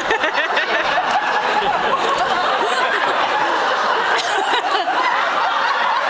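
A live audience laughing together, a sustained wave of many overlapping voices.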